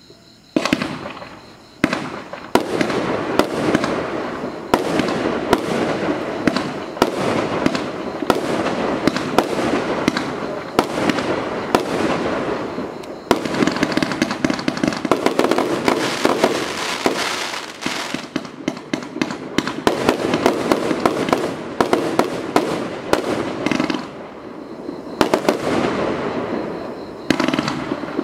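A 62-shot, 25 mm consumer firework cake (Celtic Fireworks Bish Bash Bosh) firing: a rapid, unbroken run of launch thumps and shell bursts over a steady crackle. It starts about half a second in, with a brief lull soon after and another a few seconds before the end.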